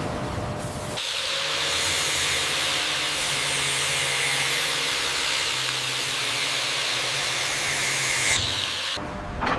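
A steady, loud hiss that starts about a second in and cuts off sharply near the end.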